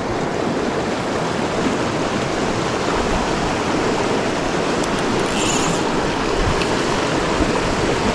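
Small mountain feeder creek running, a steady rush of flowing water.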